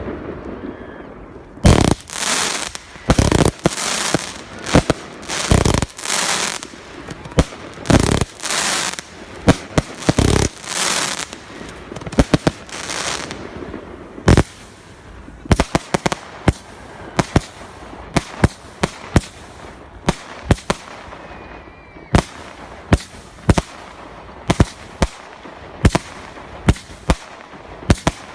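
Fireworks display: a quick run of bangs and longer crackling bursts through the first half, then sharp single reports coming irregularly, often several a second.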